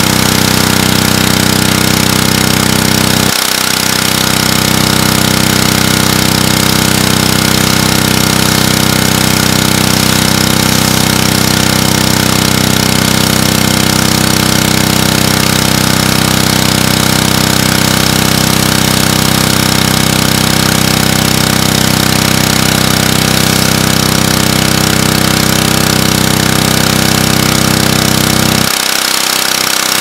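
Honda GCV190 single-cylinder four-stroke engine on a pressure washer, running steadily with a regular pulsing beat. It is running on its own after being primed with 50:1 gas-oil mix in the cylinder. Its low note breaks off briefly about three seconds in and drops away near the end.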